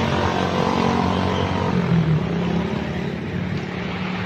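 Roadside traffic: a vehicle engine running steadily with a low hum, over road noise.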